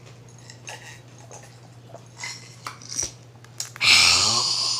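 Faint small clicks of eating, then about four seconds in a loud, breathy, voiced exhale like an "ahh", falling in pitch and lasting about a second.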